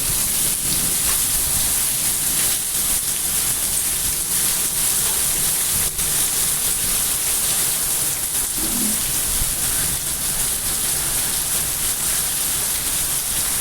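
Heavy rain in strong wind: a steady, loud hiss of rain with many fine taps of drops striking surfaces and a low rumble of wind underneath.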